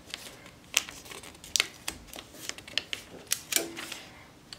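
Irregular sharp clicks and crackles from a heat-transfer sheet and heat tape being handled and pressed against a cap on a hat heat press.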